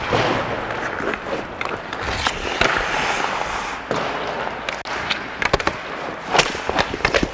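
Ice hockey skates scraping and carving on the ice, heard close on a skater's body mic. Hockey sticks and pucks crack sharply several times, the loudest cracks coming in the second half.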